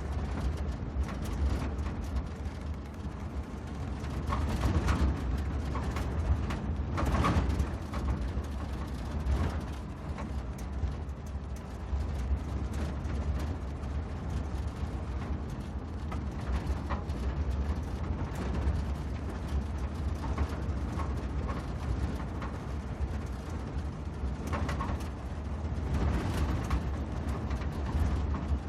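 Jeep driving off-road: a steady low engine and drivetrain rumble under continuous rattling and knocking of the body and loose parts, with heavier jolts from bumps a few times.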